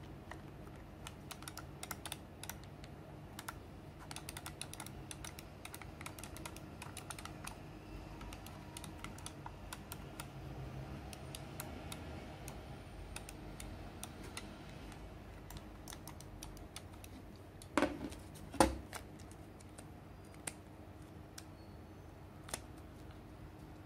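Fingers handling a gaming mouse while pressing and smoothing textured grip tape onto its shell: a scattered, irregular run of small clicks and taps, with two louder knocks close together late on.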